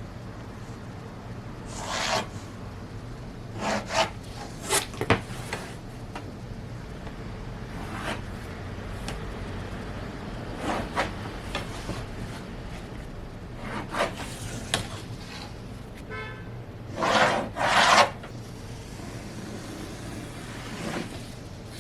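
Intermittent rubbing and rustling sounds in short bursts, the loudest a pair near the end, over a steady low hum.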